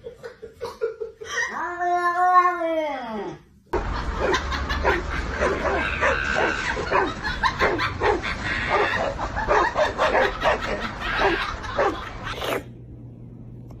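A cat yowling: a long drawn-out call that rises and then falls. Then a small dog barks rapidly and without pause for about eight seconds, with sharp, high, yappy barks at two to three a second.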